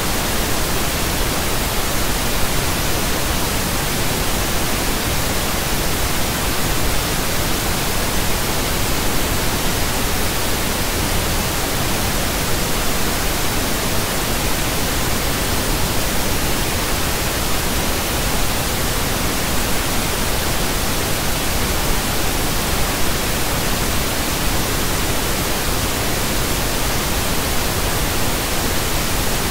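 Pink noise: a steady, even hiss spread evenly across all frequencies, unchanging.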